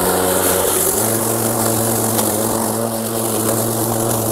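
Wild Badger Power 40V brushless cordless push mower running while cutting grass: a steady motor and blade hum over a high hiss, stepping up slightly in pitch about a second in.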